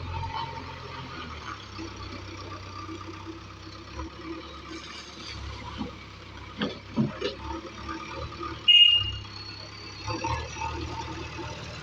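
Diesel engine of a JCB 3DX backhoe loader running steadily, with a few knocks around the middle and a short, loud, high-pitched squeak about nine seconds in.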